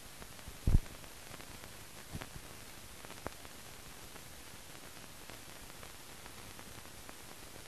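Steady hiss of an old film soundtrack, with a sharp low pop about a second in and a couple of fainter clicks after it.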